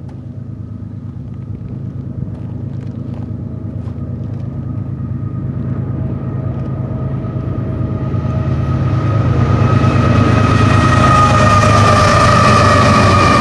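Lead locomotives of a freight train, a GE ES44C4, an ET44C4 and two Dash 9-44CW diesel-electrics, approaching and passing. Their engine drone and a steady high whine grow steadily louder as they near, and the whine drops slightly in pitch as the units go by near the end.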